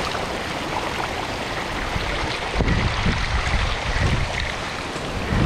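Bicycle tyres rolling through shallow floodwater, a steady hiss and splash of water spraying off the wheels, with wind buffeting the microphone and growing louder about halfway through.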